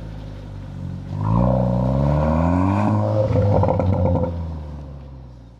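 Seat Leon Cupra ST's 2.0-litre turbocharged four-cylinder engine heard through a Milltek non-resonated cat-back exhaust. It idles, then revs up with a rising pitch for about two seconds. A rough crackle follows as the revs come down, and the sound then fades out.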